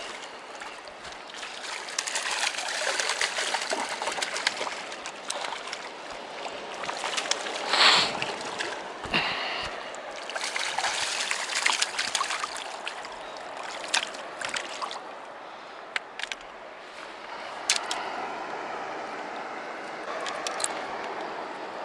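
Shallow river water running over pebbles, with a hooked pink salmon splashing in the shallows as it is drawn in on the line. The loudest splash comes about eight seconds in, and a few shorter ones follow later.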